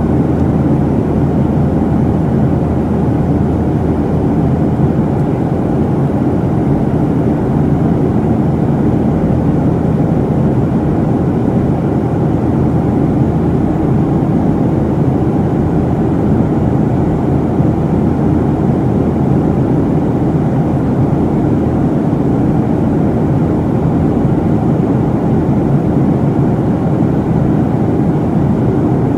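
Steady drone of a Boeing 737's jet engines and rushing airflow, heard from a window seat inside the cabin in flight.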